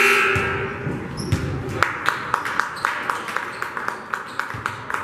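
A basketball bouncing on a gym's hardwood floor: a quick run of sharp, ringing bounces, several a second, from about two seconds in, over the hall's background murmur. A brief loud burst of sound fades out just at the start.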